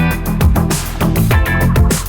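Background music: guitar-driven rock with a steady beat.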